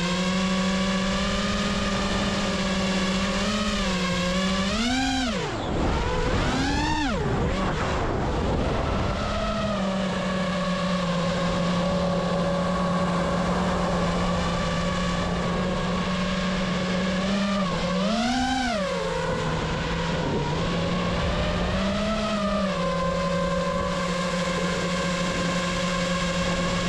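FPV racing quadcopter's motors and propellers giving a steady buzzing whine. The pitch swoops up and back down as the throttle is punched, about five and seven seconds in, again near eighteen seconds and once more around twenty-two seconds.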